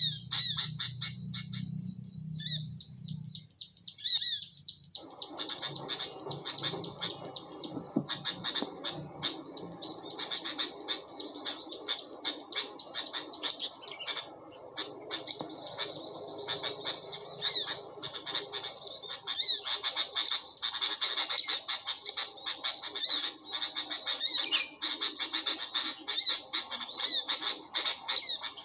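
Small birds chirping rapidly and almost without pause, high-pitched calls. About five seconds in, a steady lower hiss joins underneath.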